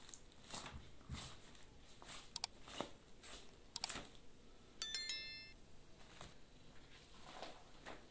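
Subscribe-button sound effect: sharp mouse clicks twice, then a short bell-like chime of stepped tones about five seconds in, the loudest sound here. Under it, faint soft strokes of a knife cutting raw lamb.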